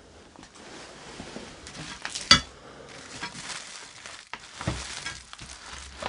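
Rustling and shuffling of someone moving through cluttered debris, with a sharp clink or knock a little over two seconds in and a few softer knocks near the end.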